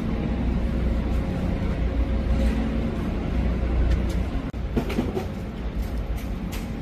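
Steady low rumble of shipyard machinery, easing a little about four and a half seconds in, with a few knocks around five seconds and a sharp click near the end.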